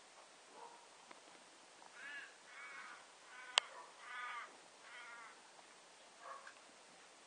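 A run of about five short, harsh animal calls, each about half a second long and fairly evenly spaced, with a single sharp click partway through.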